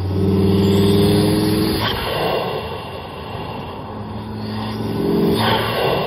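Volvo S60R's turbocharged 2.5-litre inline-five revving, heard from right beside the air filter in the engine bay. The engine note is held for about two seconds and then drops away with a short sharp noise as the throttle comes off; it rises again about four seconds in and ends with another sharp noise near the end.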